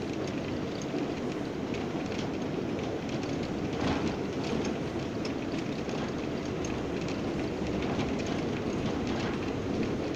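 R179 subway train running at speed, heard from inside the car: a steady rumble of wheels on rail with scattered clicks from the track, a little louder about four seconds in.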